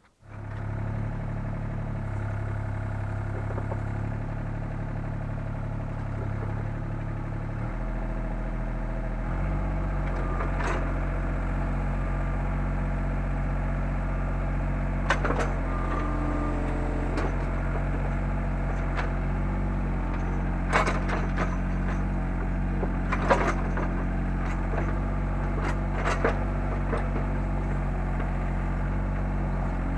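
Takeuchi TB125 mini excavator's diesel engine running steadily, its note rising about eight or nine seconds in as the revs come up. Sharp knocks and cracks come now and then over it in the second half.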